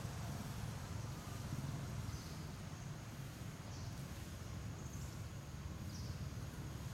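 Outdoor background noise: a steady low rumble with a few faint, short high chirps about two, four and six seconds in.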